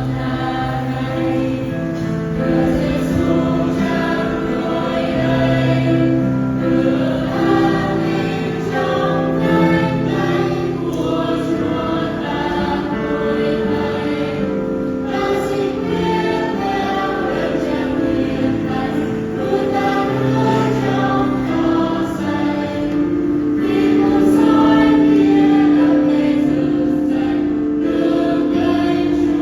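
Church youth choir singing a Christian praise hymn, holding one long note near the end.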